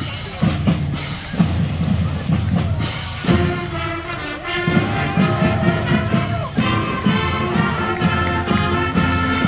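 Marching band playing as it passes in a parade: a steady drumbeat, with brass coming in on a melody about three seconds in.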